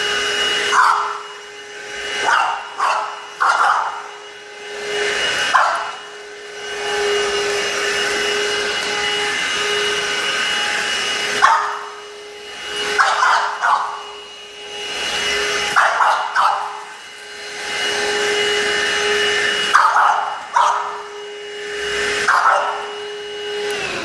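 Stick vacuum cleaner running with a steady whine while a French bulldog barks at it in short bursts, a few at a time, every few seconds.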